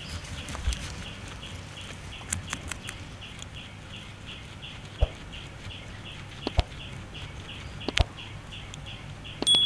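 Guinea pig chewing fresh grass, with a few sharp crunching clicks, over a faint background chirp repeating about three times a second. Near the end a short, clear electronic tone sounds.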